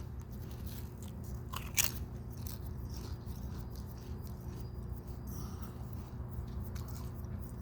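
A person biting into and chewing Lay's potato chips: one sharp crunch about two seconds in, then a run of small crunches as he chews.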